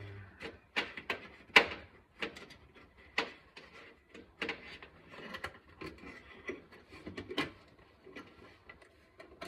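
Hands rummaging around the inside of a car trunk: a string of irregular sharp clicks and knocks with faint rustling between them, the sharpest about one and a half seconds in.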